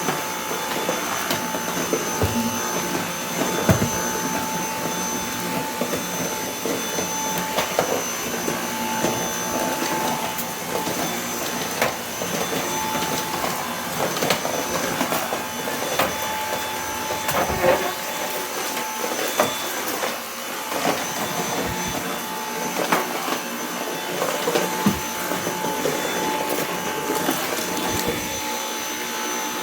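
Cordless Dyson stick vacuum running steadily with a thin high whine over its motor noise, broken by scattered clicks and knocks.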